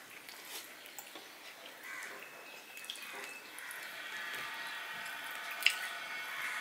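A hand mixing rice and curry on a steel plate: soft wet squishing with small scattered clicks, and one sharp click near the end. A faint steady high hum comes in about halfway.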